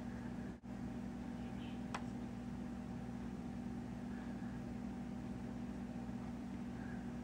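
Steady low mechanical hum of room background noise, with one faint click about two seconds in.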